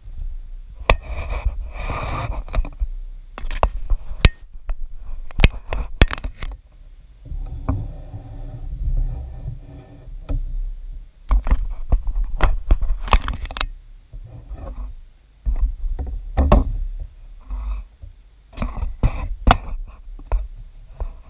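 Handling noise from a small folding display screen's framed panels being folded together, lifted and set down on a tabletop: repeated knocks and clicks with stretches of scraping.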